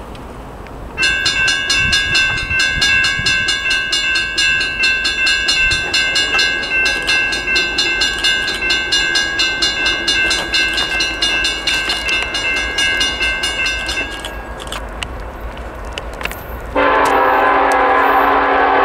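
Locomotive multi-chime air horn on a Norfolk Southern SD70ACe sounding one long blast of about thirteen seconds as the train approaches, pulsing about three times a second, then cutting off. A second, lower-pitched horn starts abruptly near the end.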